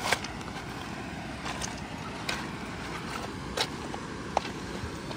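Light rain drizzling, a steady hiss, with a handful of sharp taps at irregular intervals from drops striking an umbrella.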